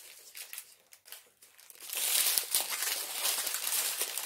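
Small plastic bags of diamond-painting drills crinkling as they are handled and counted, fainter at first and louder from about two seconds in.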